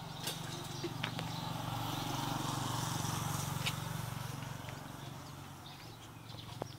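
A low engine hum that swells over the first few seconds and fades again, with a few faint clicks.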